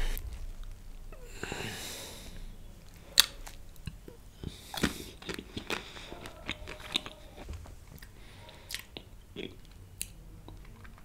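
Close-miked chewing and mouth sounds, with many scattered sharp wet clicks.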